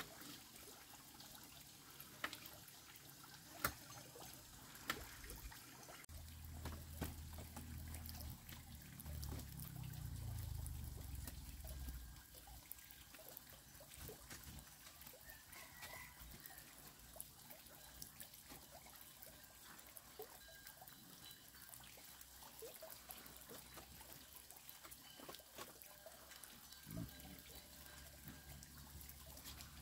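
Faint, steady trickling of water, with a few scattered clicks in the first seconds and a low rumble for several seconds after that.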